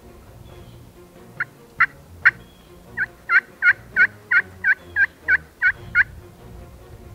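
A series of turkey yelps: three spaced notes, then a quicker run of about nine at roughly three a second.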